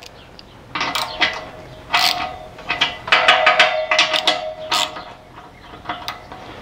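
Socket ratchet clicking in several short bursts, each with a metallic ring, as flange nuts are run onto the studs of a stainless steel exhaust flange. The nuts are being snugged only lightly so the flange can still be adjusted.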